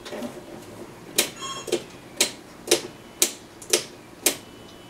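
Seven sharp clicks from the plastic cabinet or controls of a portable TV set as it is worked by hand, evenly spaced at about two a second and starting about a second in. A brief tone follows just after the first click.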